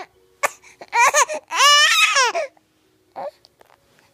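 Baby squealing twice, about a second in, in long high-pitched calls whose pitch wavers up and down, followed by a short squeak.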